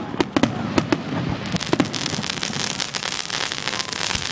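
Consumer fireworks going off: a few separate sharp pops, then from about a second and a half in a dense, rapid crackling.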